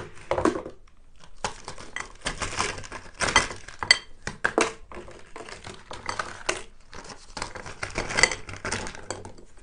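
A spoon clinking and scraping against a dish in quick, irregular strokes, with some crinkling among them.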